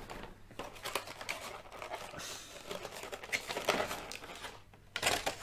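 Clear plastic blister tray of a Pokémon card collection box crinkling and clicking as it is handled, in irregular crackles, the loudest near the end.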